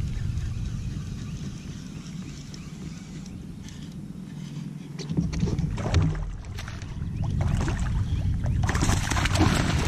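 Water splashing and sloshing around a kayak as a hooked largemouth bass is fought to the boat on rod and reel, with a louder burst of splashing near the end.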